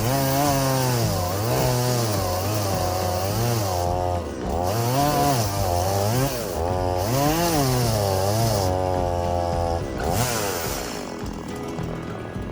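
Chainsaw engine cutting wood, its pitch repeatedly rising and falling every second or two as it revs and loads in the cut, then winding down about ten seconds in.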